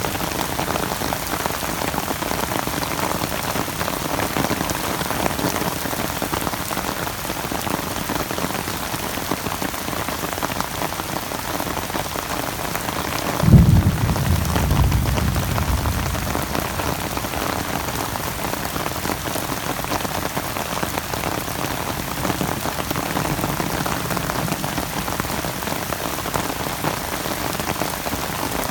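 Steady rain falling on a surface, an even hiss throughout. About halfway through, a sudden low thump rumbles and fades over a couple of seconds.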